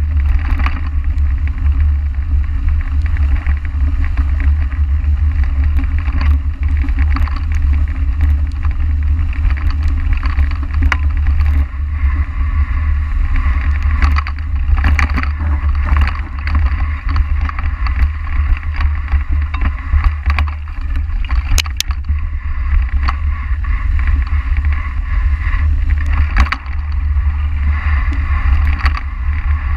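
Riding noise on a bike-mounted camera: heavy wind and vibration rumble on the microphone, the tyres running over dry fallen leaves, and frequent sharp clicks and knocks from the bike jolting over the trail.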